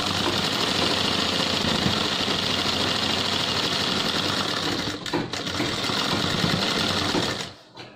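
Sewing machine running steadily as it stitches along a trouser waistband strip, with a brief slow-down about five seconds in; it stops just before the end.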